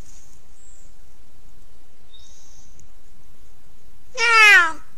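Puma (mountain lion) giving one short, meow-like call about four seconds in, lasting about half a second and falling in pitch.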